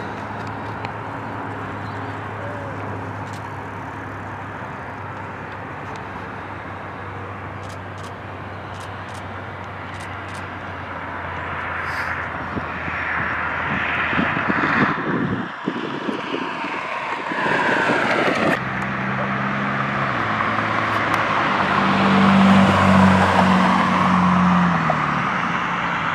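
Aircraft engine noise: a steady low drone, then louder jet noise with a sweeping whoosh as an aircraft passes, breaking off abruptly twice midway. Near the end a jet's engines run loudest, with a low hum under them.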